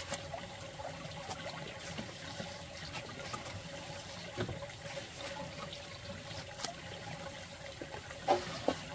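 Water trickling, with scattered light clicks and two sharper clicks near the end.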